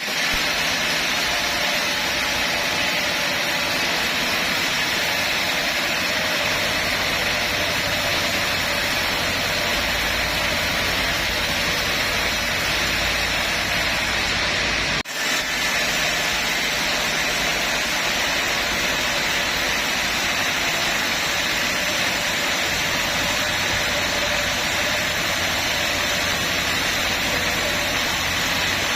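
Sawmill bandsaw running with a steady, loud, noisy whir, broken by a brief drop about halfway through.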